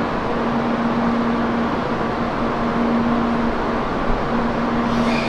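Tokaido Shinkansen train standing at the platform, its onboard equipment running with a steady rushing noise and a low hum that breaks off and returns every second or so.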